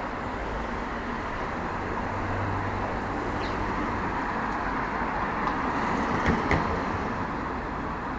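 Street traffic noise: a steady hum of cars passing on the road, with a low engine drone for a second or so about two seconds in. Near the six-second mark come a couple of short sharp knocks.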